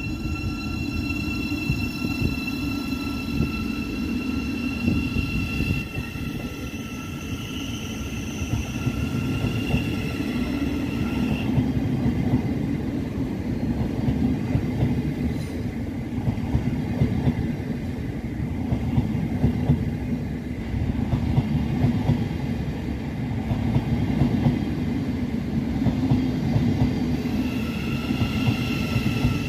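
Thameslink Class 700 electric multiple unit moving slowly past, with a steady low rumble of wheels on rail and a high electric whine from its traction equipment that drops out about eleven seconds in and returns near the end.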